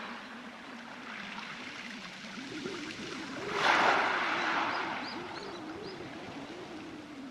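Sea waves washing onto a beach of smooth pebbles, one larger surge swelling about halfway through and slowly fading, over a low wavering hum.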